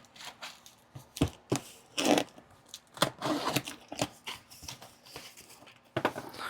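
A cardboard shipping box being opened and its paper packing handled: irregular tearing, crinkling and sharp knocks.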